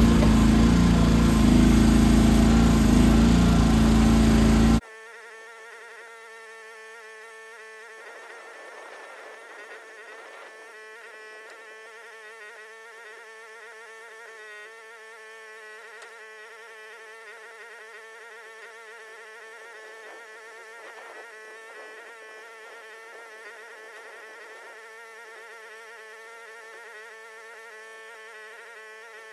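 Mini excavator engine running loud, then cut off abruptly about five seconds in. What remains is a faint, steady high-pitched buzz.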